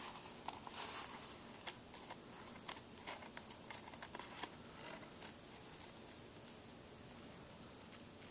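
Kitchen scissors snipping through a thick leather strap in short, irregular cuts, rounding off its end.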